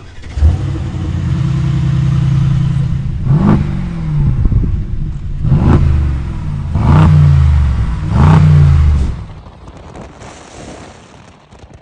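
The Brabus Crawler's 900-horsepower twin-turbo V8 starting up with a sharp flare, running steadily, then revved four times, each rev rising and falling in pitch, before the sound dies away near the end.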